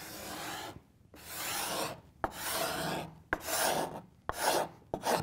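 Steel card scraper taking thin shavings off hardwood edging glued to a plywood panel: about six scraping strokes in a row, several starting with a sharp click. The strokes level edging strips that stand a little proud of the plywood face.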